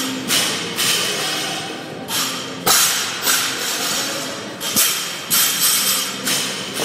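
Barbell with bumper plates hitting the gym floor: two heavy thuds, about three and five seconds in, the later one as the bar is dropped from a clean. Loud rhythmic gym music plays throughout.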